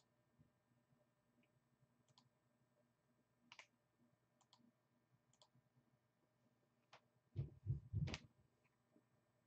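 Sparse computer mouse clicks, several in quick pairs, with a few louder knocks about seven to eight seconds in.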